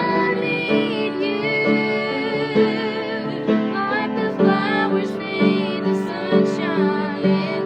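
A slow, tender song: a female voice sings a wavering melody over piano accompaniment.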